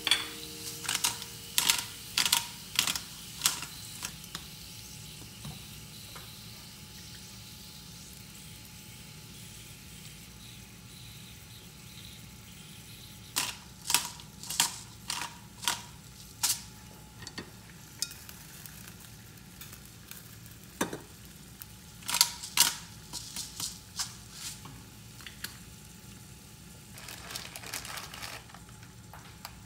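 Hand pepper mill grinding in short runs of sharp crunchy clicks, in three spells, over a steady low sizzle of steak on an electric grill pan. Near the end a brief soft rustle.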